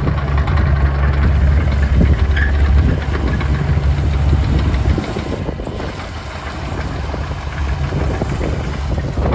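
Hitachi ZX48U-6 mini excavator's diesel engine running with a steady low hum and clatter. About five seconds in, the engine note drops and gets a little quieter.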